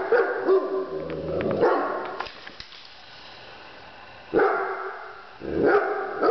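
Golden retriever barking in bursts, excited by a wind-up toy: a run of barks in the first two seconds, a pause, then two more about four and a half and five and a half seconds in.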